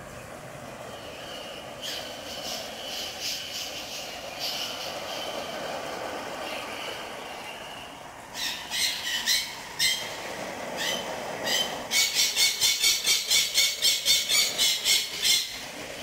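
Water spraying onto broad aglaonema leaves, a steady splashing hiss. From about halfway a rhythmic high-pitched squeaking joins in, about four a second, and it is the loudest sound over the last few seconds.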